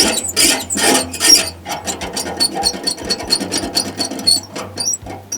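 Foley squeak for a stretcher's wheel, made by working a coconut-fibre cord: a run of rhythmic rubbing squeaks, about two or three a second at first, then quicker and lighter after about a second and a half.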